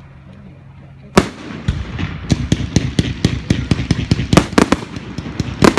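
Aerial fireworks: one loud bang about a second in as a shell bursts, then a rapid, irregular string of sharp cracks and pops that grows denser toward the end.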